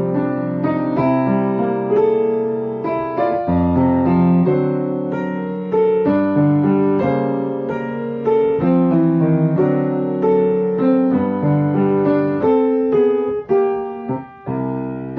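Background piano music: a gentle piano melody with chords, a brief pause near the end.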